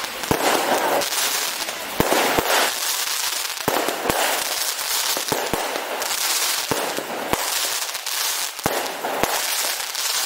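Aerial fireworks display: about a dozen sharp bangs of shells bursting at irregular intervals, over a dense crackling and hiss from crackle effects that swells and fades.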